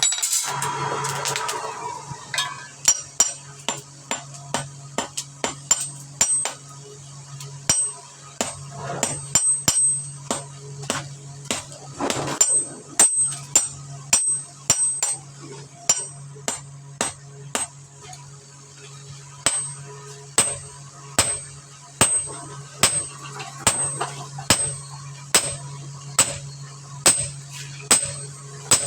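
Hand hammer striking steel on an anvil in irregular blows, about one to two a second, each with a bright metallic ring, over a steady low hum.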